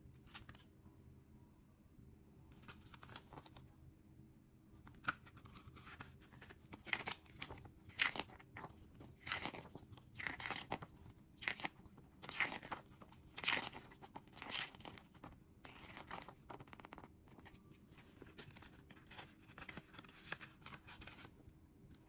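Cardboard CD sleeve and paper booklet being handled: a run of short paper rustles and crinkles as the booklet is leafed through and the sleeve is opened, busiest in the middle and tapering off toward the end.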